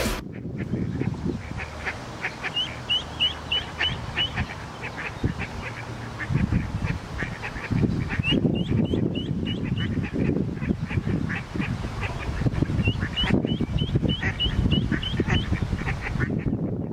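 Ducks quacking and calling, with three runs of quick, high, upward-flicking calls among the lower quacks.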